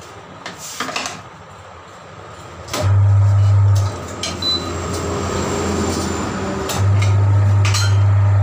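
Tyre changer's electric turntable motor running with a loud, steady low hum in two runs: about a second's run near three seconds in, then again from about seven seconds in, while a tyre is worked on the rim with a lever. A few light clicks and knocks of tools come before the motor starts.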